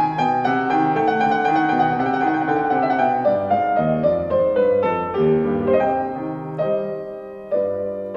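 Piano music: a slow melody played over chords, the notes growing sparser and quieter toward the end.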